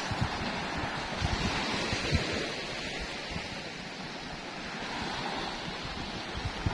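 Small sea waves breaking and washing up the shore, with wind gusting on the microphone in uneven low rumbles.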